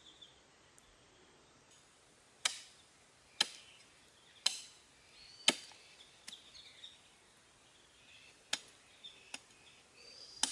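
Large chopping knife hacking through goat trotters on a wooden log, with sharp chops about a second apart. After a short pause a few lighter strikes follow, then more heavy chops near the end.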